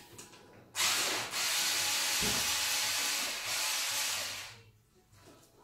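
A loud, steady hiss that starts suddenly about a second in and fades out near the end, lasting about four seconds.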